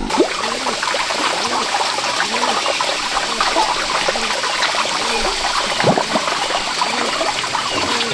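Water running and trickling steadily, with small gurgles throughout.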